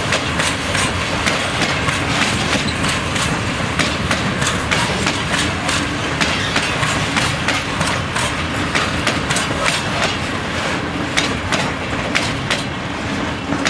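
Freight train wagons rolling past, their wheels clicking over rail joints in an uneven stream of sharp clicks over a steady rumble.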